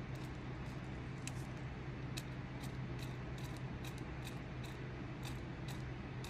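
Hand carving tool cutting small chips from a wooden walking stick: short crisp snicks of the blade in the wood, about two to three a second, over a steady low hum.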